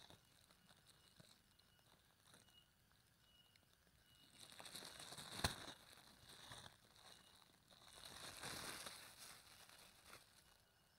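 Thin clear plastic bag crinkling as it is handled, in two faint bursts of rustling: the first about four seconds in, ending with a sharp crackle, the second about eight seconds in.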